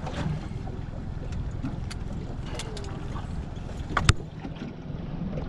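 Wind buffeting the microphone over a drifting aluminium boat, a steady low rumble and hiss, with a few small clicks and one sharp knock about four seconds in as a hooked fish is handled with pliers.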